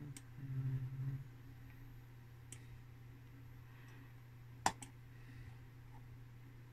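Computer mouse clicking a few times: single clicks near the start and about two and a half seconds in, then a sharper pair of clicks about two-thirds of the way through. A steady low hum runs underneath, with a short low hum in the first second.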